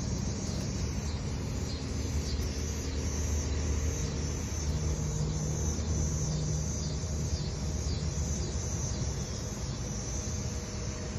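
Outdoor background: a low, steady engine rumble that swells between about three and seven seconds in, with insects buzzing in a high pulsing band above it.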